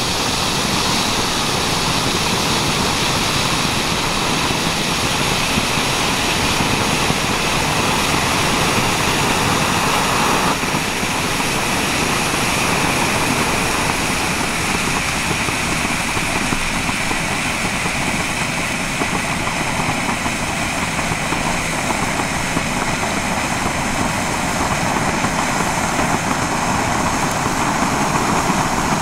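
Two Bengal flares (Nico yellow and blue Bengal torches, F1 youth fireworks) burning side by side, giving a steady hiss.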